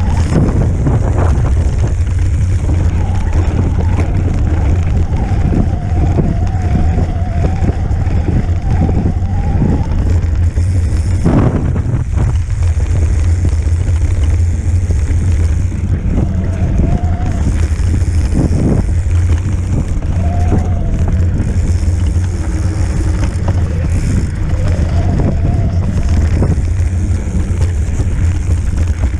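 E-bike riding over a snowy trail. There is a steady low rumble of the tyre and wind buffeting the microphone, and a couple of bumps about twelve seconds in. The e-bike's motor whines with a wavering pitch, strongest in the first ten seconds and coming back briefly later.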